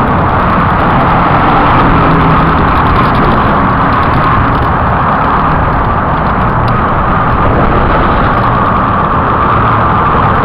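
Loud, steady rumble of travel along a city road, with a low drone of engine hum under it and no break.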